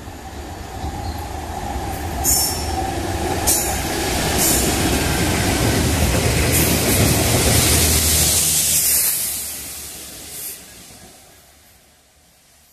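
Two Freightliner Class 66 diesel locomotives, each with a two-stroke V12 engine, hauling a rail head treatment train past at line speed: the engine drone and wheel noise build up as the train approaches, are loudest for a few seconds as it goes by, then fade as the rear locomotive draws away. A few sharp clicks stand out, twice as it approaches and once as it fades.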